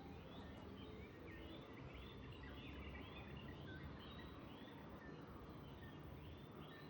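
A bird calling over and over, a short rising-and-falling note about every half second, faint against a low outdoor rumble.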